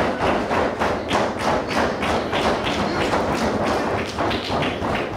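A steady, even beat of sharp thumps, about four a second.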